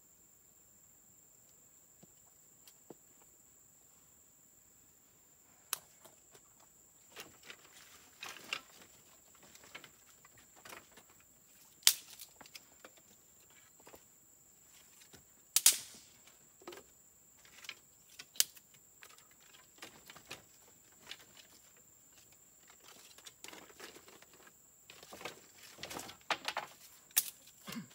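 Sticks and wood being handled and worked with a knife: scattered sharp cracks and knocks with lighter scraping between them, a few much louder than the rest and growing busier near the end.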